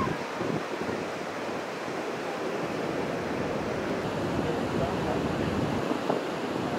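Steady wash of surf and wind noise on the microphone, an even hiss with no distinct events.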